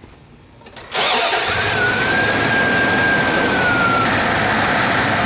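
1990 Dodge Ram W150's 5.2-litre (318) V8 being started, catching almost at once about a second in and then running steadily. A high, steady whine sounds over it for a few seconds and fades near the end.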